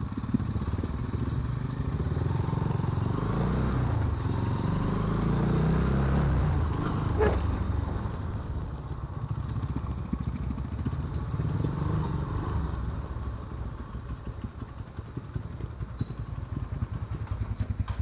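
Motorcycle engine running at low speed, its note rising and easing as the rider threads a narrow lane, with a sharp click about seven seconds in. Near the end it settles to an even, slower pulse as the bike slows to idle.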